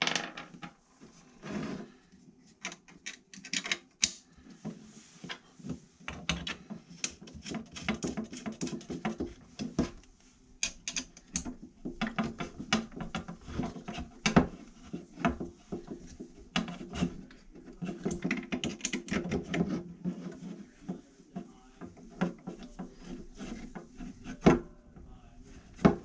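Assembly handling of an ice shuttle's textured side panels and mounting hardware on a wooden workbench: irregular clicks, knocks and rubbing as the parts are turned over, fitted together and set down.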